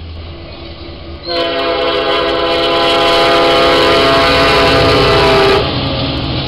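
Diesel freight locomotive's multi-note air horn sounds one long steady blast of about four seconds, starting about a second in, over the rumble and wheel noise of a passing intermodal freight train.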